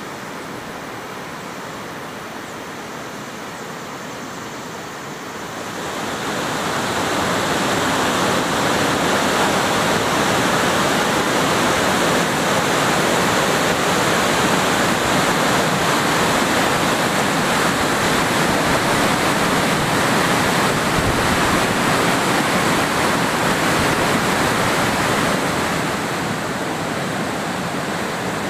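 A waterfall's white water rushing over stepped rock ledges, a steady, even roar of water. It grows louder about six seconds in and eases slightly near the end.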